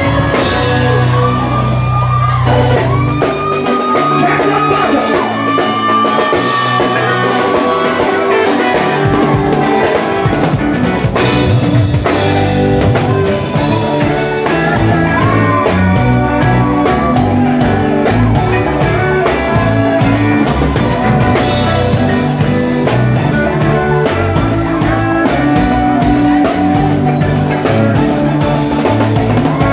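Live band playing loudly: drum kit, electric guitar and bass, with a sustained, bending lead line above. The drums come in more busily after about ten seconds.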